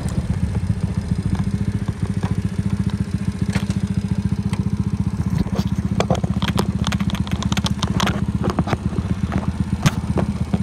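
A small engine running steadily with a rapid low pulse, with irregular clicks and rattles over it in the second half.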